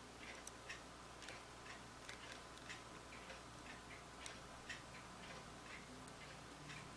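Faint, irregular light clicks and ticks, a few a second, of small watch-repair tools working on a wristwatch as a hand is fitted back on.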